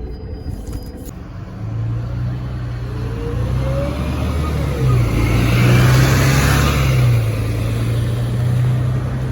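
Mercedes-Benz Citaro O530 bus pulling away and accelerating. Its diesel engine note grows louder about a second and a half in and shifts in steps as the gears change, with a rising whine from the ZF automatic gearbox.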